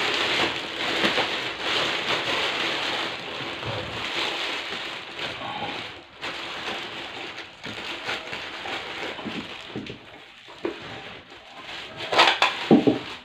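Thin clear plastic bag crinkling and rustling as it is pulled off a large speaker driver, busiest in the first half, with a few louder crackles near the end.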